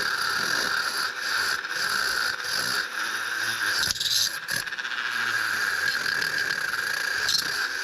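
A small power tool running with a steady whine, scrubbing old deposits and crud off a motorcycle cooling-system part.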